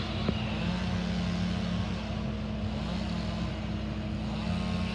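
An engine running steadily at a constant speed, with a single sharp click about a third of a second in.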